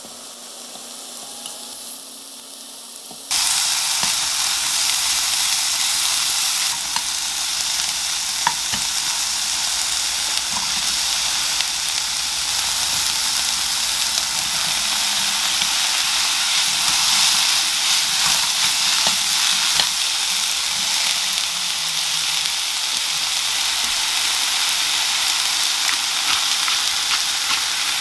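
Sliced pork loin sizzling in a hot nonstick frying pan, with onion added partway. The sizzle is quieter for about the first three seconds, then starts loud all at once and runs steadily, with a few light clicks of a utensil stirring against the pan.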